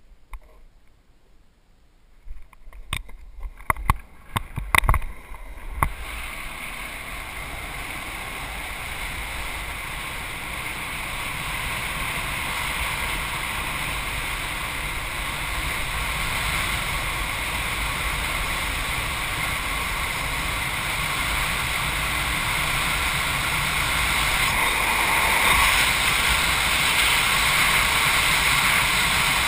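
Longboard rolling fast down a steep asphalt hill: the steady rush of wind on the microphone and the roar of the wheels on the road, growing slowly louder as speed builds. A burst of sharp knocks comes a few seconds in, before the rushing sets in.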